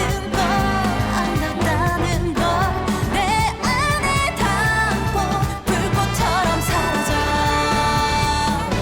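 K-pop song playing: sung vocals over a steady bass beat, ending on a long held note.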